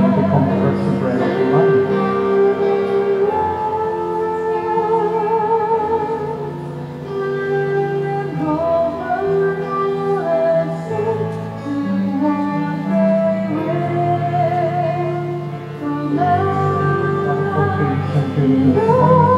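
Slow song: a singer's voice holding long notes with vibrato over sustained instrumental accompaniment.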